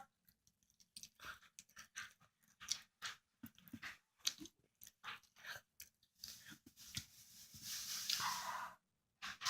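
Faint close-up chewing of a hot dog: a string of short wet clicks and crunches, with a longer breathy hiss for a couple of seconds about six seconds in.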